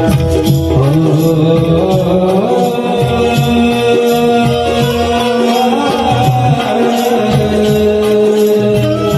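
Live Marathi devotional folk song (stavan): a voice sings with sliding, held notes over a steady drum beat and sustained accompaniment.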